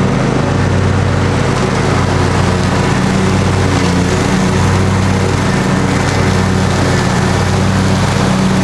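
Engine running steadily and loudly at a constant speed, with no change in pitch.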